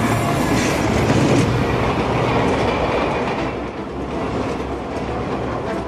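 Train running fast along the track, its wheels clattering over the rails; the noise eases a little after about three and a half seconds.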